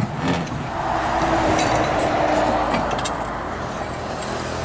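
A road vehicle passing close by with its engine running and tyre noise that swells about a second in and eases off after about three seconds.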